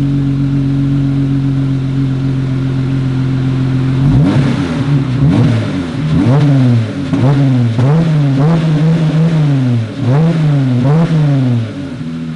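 Jeep Wrangler JL engine running with its muffler removed: a steady idle, then from about four seconds in a run of quick revs, about eight, each rising and falling back.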